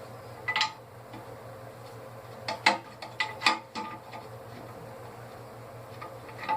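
Metal hand tool clinking and tapping against the brass fittings on a steel compressor tank while a fitting is worked loose: a few sharp clicks with a light metallic ring, about half a second in and again in a cluster around three seconds in, over a steady low hum.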